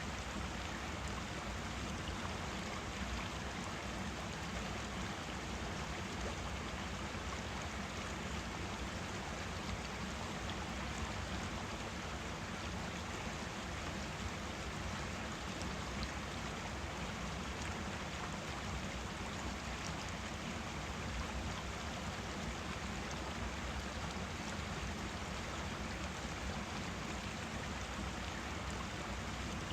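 Forest stream running, a steady rush and babble of water flowing over rocks.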